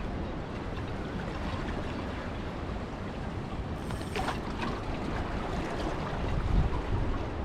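Wind buffeting the microphone over the wash of the sea, as a steady rumbling noise, with a stronger gust about six and a half seconds in. A brief, sharper sound cuts through about four seconds in.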